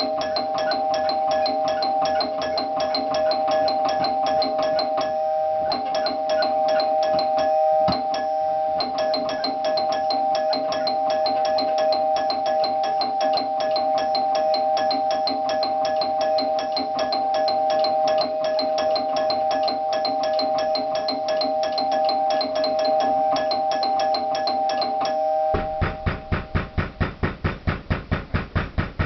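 A doorbell ringing without let-up, broken only twice for a moment. It stops abruptly about 25 seconds in, and rapid pounding begins, about four blows a second.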